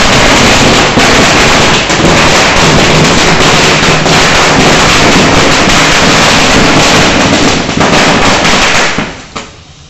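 Ground fountain firework spraying sparks: a loud, continuous hiss with scattered crackles that dies away about nine seconds in.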